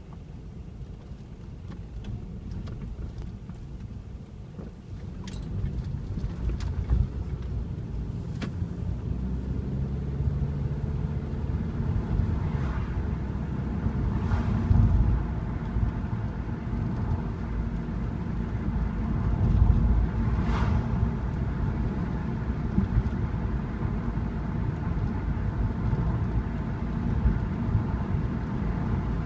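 A car driving, its engine and tyres making a steady low rumble that grows louder about five seconds in as it picks up speed. Now and then a short knock comes through as it goes over bumps.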